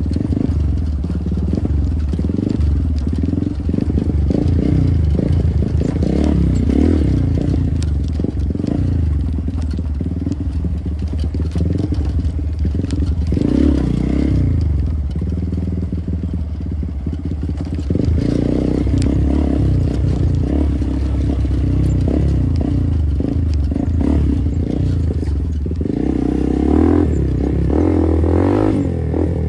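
Motorcycle engine running while riding, its note rising and falling with the throttle, revving harder near the end.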